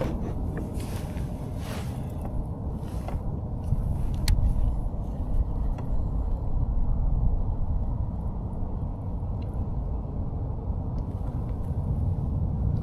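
Steady low rumble of wind buffeting the microphone and water moving past a kayak under way, with a few faint clicks in the first few seconds.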